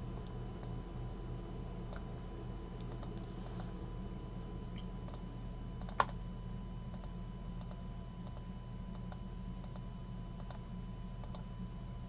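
Scattered faint clicks of a computer keyboard and mouse, with one sharper click about six seconds in, over a steady low hum.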